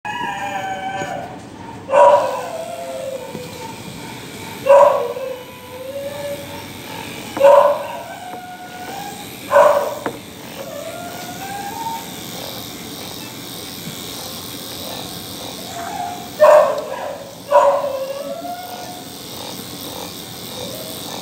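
Small dog being groomed, giving six short, sharp yelping barks that each drop in pitch: four spaced a couple of seconds apart, then after a pause two close together. Softer whines follow several of them.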